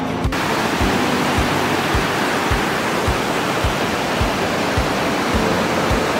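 River water rushing with a loud, steady roar, the stream running high after a typhoon. Background music with a steady beat of about two thumps a second plays over it.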